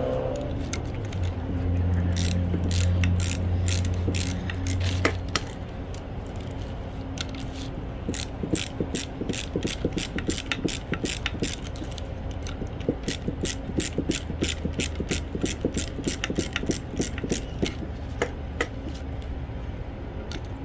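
Ratchet wrench clicking in quick runs as an 11 mm brake caliper bleeder valve is unscrewed and the new one is threaded in. A low hum is heard during the first few seconds.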